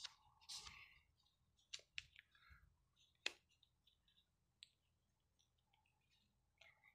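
Near silence: quiet room tone with a handful of faint, sharp clicks, the sharpest about three seconds in.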